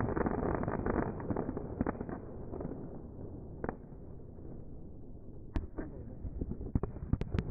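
Fireworks going off: a dense crackle of many small bangs that thins out around the middle, followed by a few sharp single cracks near the end.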